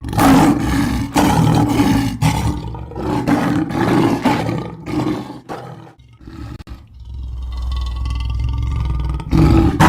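A large wild animal roaring again and again in rough roars, with a longer, steadier low rumble about seven seconds in.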